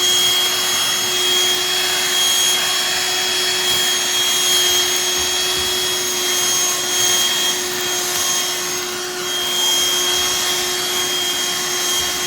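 BLACK+DECKER Dustbuster cordless handheld vacuum running steadily: a constant motor whine at one pitch over a rush of air.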